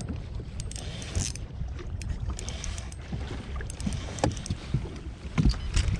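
Wind on the microphone and water slapping against a fishing boat's hull, with scattered knocks on the boat and short splashy bursts of hiss; the knocks grow stronger near the end.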